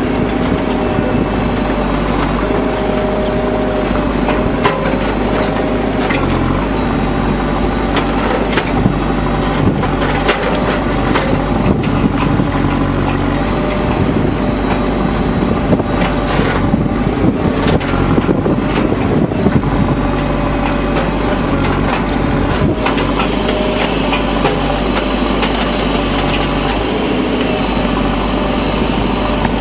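JCB backhoe loader's diesel engine running steadily while its rear bucket digs into earth and stones, with scattered knocks and clanks of the bucket and rocks.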